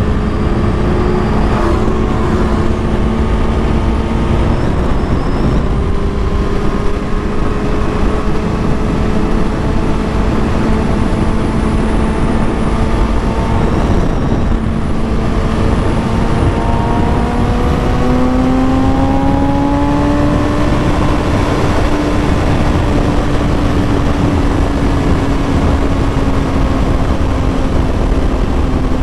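Kawasaki Ninja ZX-6R's inline-four engine running at highway cruising speed under heavy wind rush. A little past halfway the engine note rises as the bike speeds up, then holds steady at the higher pitch.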